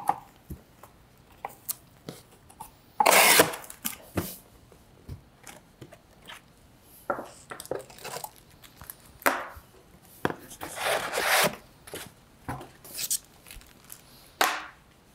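Cardboard box being opened and unpacked by hand: flaps and cardboard packing inserts handled, and plastic-bagged accessories rustling as they are lifted out and set down on a table, in scattered short bursts, the loudest about three seconds in.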